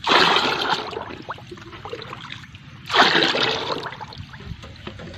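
Water pouring and sloshing into a plastic bucket of granular 14-14-14 fertilizer as a stick stirs it to dissolve, mixing a drench solution. The splashing comes in two surges, at the start and about three seconds in, each fading off.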